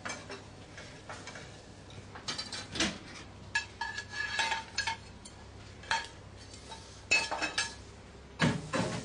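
Kitchen clatter: plates, a pan and cutlery clinking and knocking in scattered strokes, some leaving a short ringing tone, with the loudest knocks in the later seconds.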